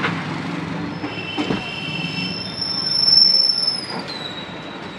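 A long, high-pitched squeal, held steady for about three seconds and then dropping slightly in pitch, over a haze of street noise, with a knock about a second and a half in.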